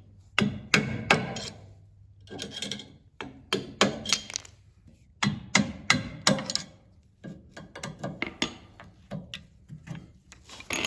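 Irregular clusters of knocks, taps and scraping as the end cap is worked off a sawmill frame post.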